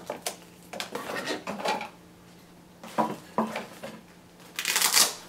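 Hard items being handled out of a lens box: a run of light clinks and knocks, then a louder scraping rustle near the end.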